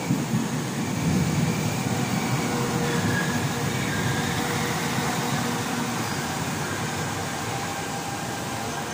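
Northern Class 195 diesel multiple unit running into the platform and passing close by, a steady rumble of wheels and underfloor engines. It swells in the first second, is loudest soon after, then eases slowly as the train slows.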